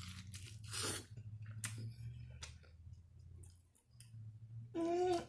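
Close-up chewing of fried chicken: wet mouth clicks and smacks at an uneven pace, over a low steady hum. A short hummed note comes near the end.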